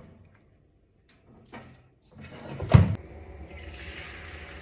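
A single knock about two and a half seconds in, then a steady sizzle as beaten eggs start frying in a hot pan.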